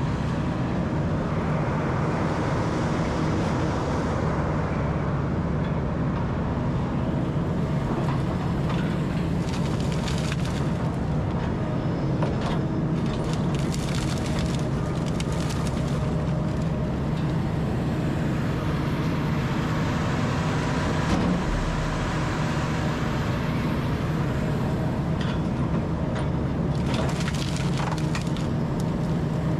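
Rotochopper B66L horizontal wood grinder running steadily under load as it grinds pine trees into chips. Irregular bursts of cracking and splintering wood come over the machine's constant drone.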